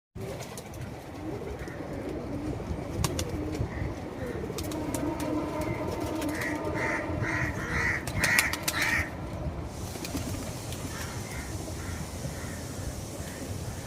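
Domestic pigeons cooing, with a run of about six short, higher calls roughly two a second near the middle, and scattered sharp clicks.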